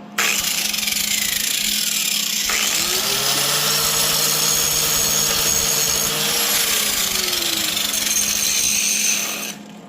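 Electric grinder grinding steel in one continuous run of about nine seconds, starting abruptly and stopping near the end, its motor pitch sagging and recovering as the wheel is pressed into and eased off the metal.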